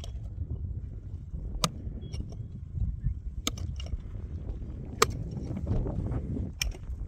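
A hand digging tool striking stony, rocky earth in a pit: about five sharp, separate knocks at uneven intervals, over a steady low rumble.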